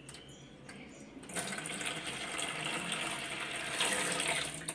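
Water poured from a plastic dipper into a basin of soapy water: a steady splashing stream that starts about a second in and stops near the end.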